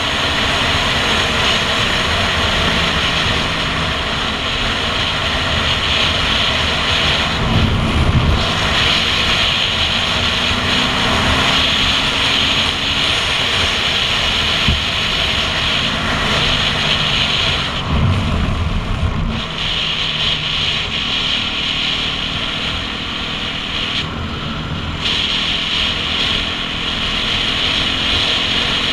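Dirt bike engine running at road speed under the rider, its pitch rising and falling a few times as the throttle changes.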